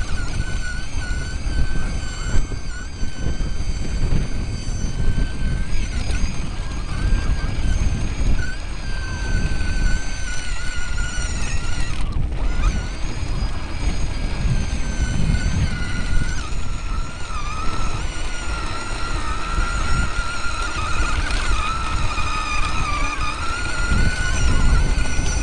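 An off-road vehicle's electric motor whining as it drives, its pitch wavering up and down with speed and briefly dropping out about halfway through, over low rumble and wind buffeting from the bumpy dirt trail.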